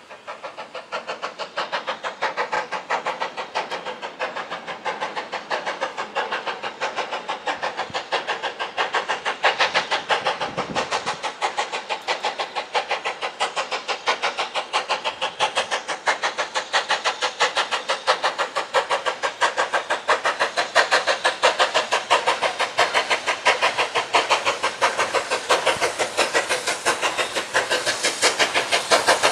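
BR Standard Class 5MT 4-6-0 steam locomotive No. 73096 working a train with a rapid, even beat of exhaust chuffs and hissing steam. It grows louder as it approaches.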